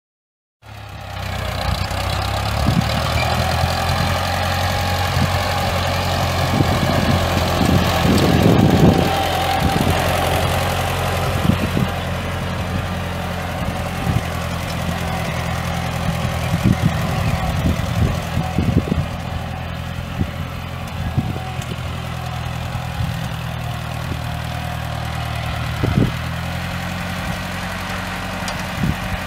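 Ford 5000 tractor's four-cylinder gas engine idling steadily, with scattered clicks and knocks over the hum and a louder stretch about eight to nine seconds in.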